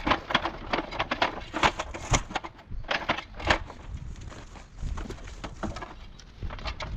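Cut tree branches and twigs rustling and snapping as they are handled, a rapid, irregular crackle that is thickest in the first few seconds and thins out later, with a low rumble of wind on the microphone.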